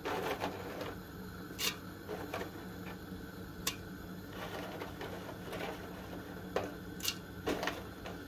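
Stiff dried egg-noodle strips being dropped into a stainless steel pot of soup, ticking and clicking now and then against the pot and each other, over a low steady hum.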